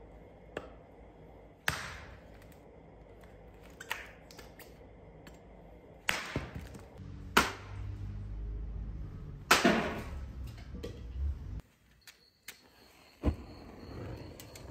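Firewood being handled and dropped into a metal drum fire pit: several separate sharp wooden knocks and clatters, with a low rumble in the middle. Crickets chirp steadily near the end.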